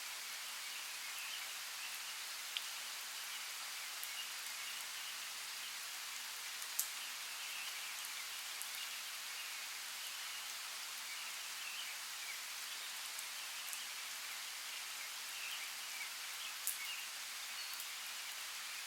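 Steady rainforest rain, an even hiss with a few sharper drops striking close by, the loudest about seven seconds in.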